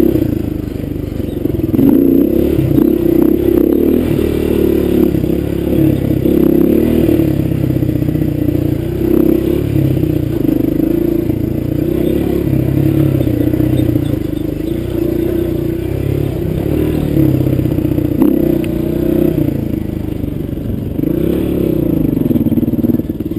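Dirt bike engine running under constantly changing throttle on a rough trail, its pitch rising and falling, heard close up from on the bike.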